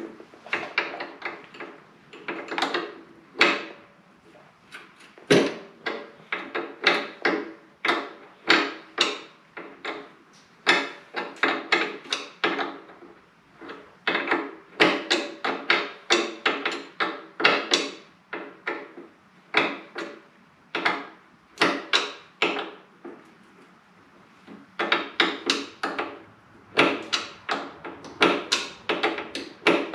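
Wrench working the rear brake line fitting off a motorcycle: a run of sharp metallic clicks, two or three a second, in spells broken by short pauses.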